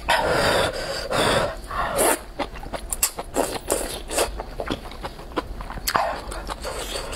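A person slurping rice noodles from hot soup: three loud sucking slurps in the first two seconds, then wet chewing with many short smacks, and another slurp about six seconds in.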